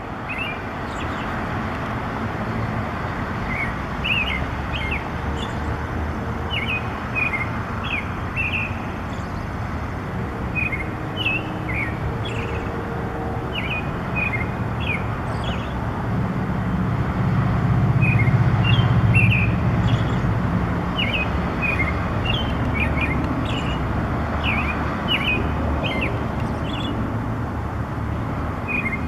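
A songbird singing phrases of short, quick chirps with brief pauses between them, over a steady low rumble that swells for a few seconds about two-thirds of the way through.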